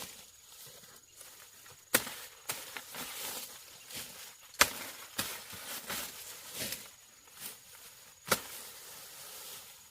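Chopping with a hand tool: three sharp, loud strikes a few seconds apart, with lighter chops in between at an uneven pace.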